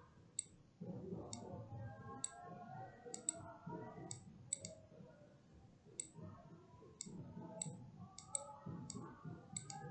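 A computer mouse clicking about a dozen times at irregular intervals, some clicks in quick pairs, as curved lines are placed in a paint program. Under the clicks there is a faint, steady background murmur.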